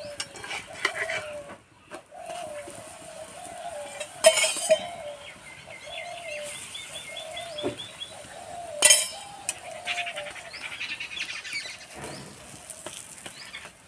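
A metal spatula clinks sharply against an iron tawa twice, a few seconds apart, while a paratha fries on it. Birds call in the background, one with a quick high trill.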